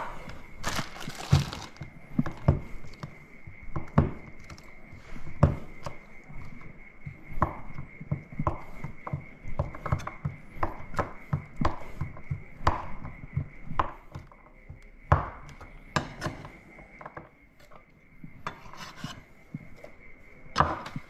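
Knife chopping salad vegetables on a cutting board: irregular knocks, one or two a second, some heavier thuds among them.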